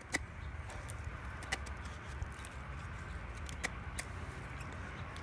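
Spring-steel blade of a Glock 78 field knife shaving curls off a dry, dead stick, a soft scraping with a few sharp clicks as the edge bites and snaps through the wood.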